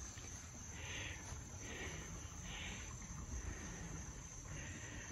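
Faint outdoor ambience: insects chirping, four short soft chirps roughly a second apart, over a low rumble.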